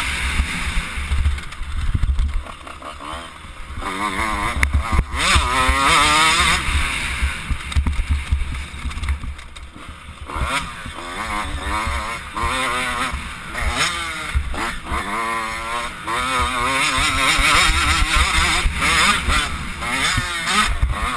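85cc two-stroke motocross bike engine revving up and falling back again and again as it is ridden hard on a dirt track, easing off briefly a couple of times for corners. Wind rumbles on the microphone throughout.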